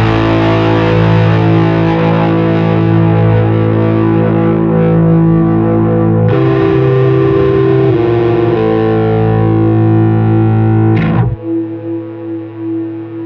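Electric guitar (Fender Jazzmaster) through an EarthQuaker Devices Tone Reaper silicon-germanium fuzz pedal and an amp modeller: thick, sustained fuzzed chords that change about six and eight and a half seconds in. About eleven seconds in the low end drops out and a thinner note rings on, wavering as it fades.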